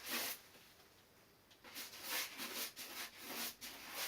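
Brush strokes spreading polyester resin over fibreglass cloth on a surfboard: short scrubbing swishes, one at the start, a lull of about a second, then a quicker run of strokes.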